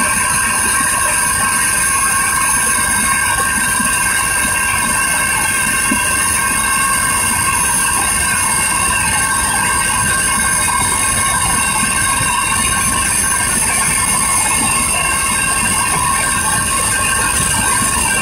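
Helicopter cabin noise in flight: a loud, steady low rumble from the rotor and engine, with several steady high-pitched whines laid over it.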